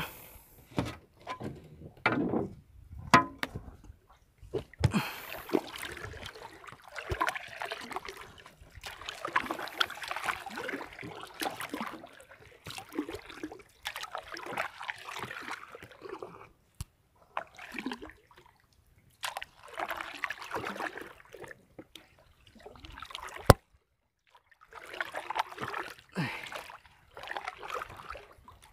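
Sea water sloshing and splashing close to the microphone in irregular spells, with short quiet gaps between them. A single sharp click stands out about two-thirds of the way through.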